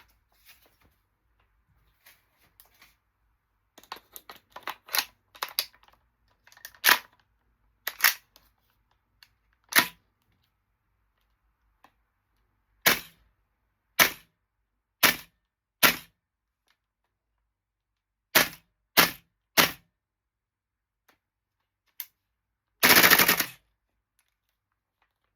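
Tokyo Marui MTR-16 gas blowback airsoft rifle: faint clicks and clacks of handling at first, then a dozen sharp single shots, each with the bolt cycling, spaced one to three seconds apart, some in quick pairs. Near the end comes a rapid string of shots lasting under a second, the loudest part.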